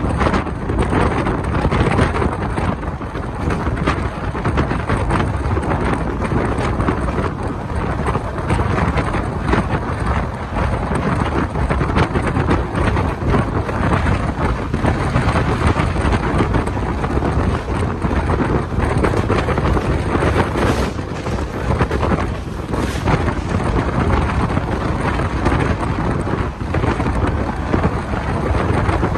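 Wind noise on a microphone held out of a moving Indian Railways passenger coach, over the steady running noise of the train on the track.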